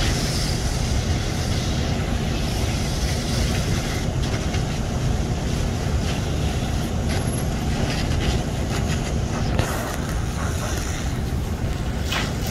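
Steady low rumble of a fire engine's engine running to drive its pump, with a steady hiss over it.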